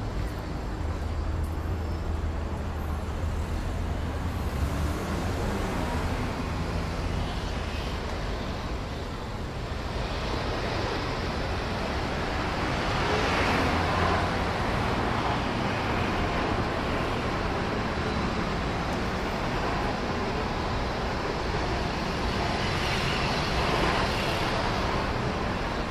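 Road traffic: motor vehicle engines running and passing, with a steady low engine hum at first and louder traffic noise from about ten seconds in.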